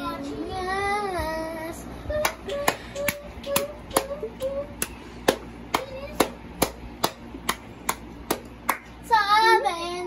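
A child making sung, wavering vocal noises into a pedestal fan. In the middle stretch the voice drops to a faint held tone under a steady series of sharp clicks, about two a second. The loud wavering voice comes back near the end.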